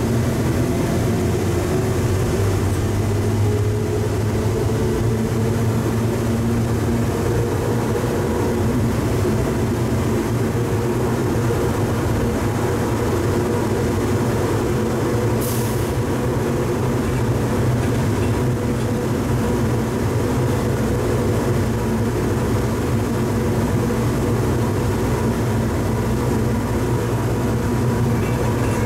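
Hartsfield-Jackson Plane Train, a rubber-tyred automated people mover, heard from inside the car as it runs through its tunnel. The drive's whine rises in pitch as the train picks up speed over the first several seconds, then holds steady over a continuous running rumble. A brief hiss comes about halfway through.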